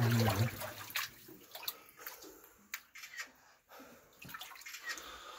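Water sloshing and splashing as a person wades through floodwater, in irregular surges with each step.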